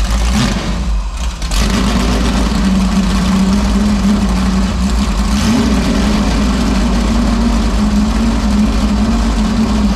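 Junkyard 5.3-litre LS V8 running loud through open 8-into-1 headers with no mufflers. It dips briefly about a second in, then holds a steady, gnarly-sounding idle. It is smoking and, the builders think, getting way too much fuel.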